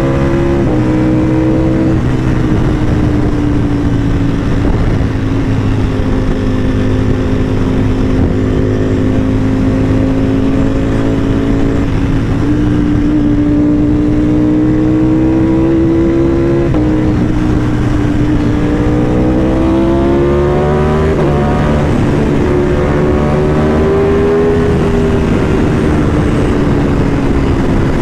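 Motorcycle engine running under way, its pitch rising slowly as it revs and then dropping abruptly a few times at gear changes.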